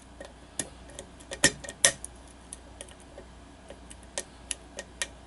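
Irregular small metallic clicks of a lock pick working the pins of a five-pin pin-tumbler lock under tension, with the core in a deep false set. The two loudest clicks come about a second and a half to two seconds in, with a few lighter ones near the end.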